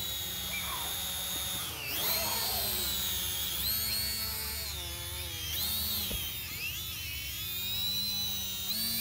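Small quadcopter drone's propellers whining, the pitch wavering up and down as it is flown close and caught by hand.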